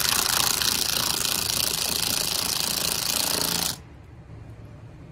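Cordless 1/4-inch impact driver hammering a Phillips screw through the rear mudguard into a plastic screw clip: a loud, fast rattling that stops suddenly nearly four seconds in as the screw seats.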